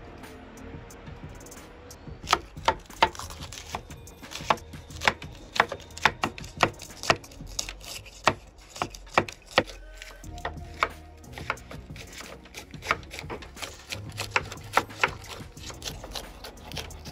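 Knife chopping through winged beans on a wooden cutting board: sharp, crisp strikes about two a second, with a short pause about ten seconds in before the chopping resumes more softly.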